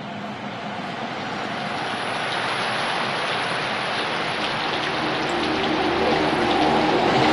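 Rain-like hiss that swells steadily louder, with faint sustained low tones coming in during the second half.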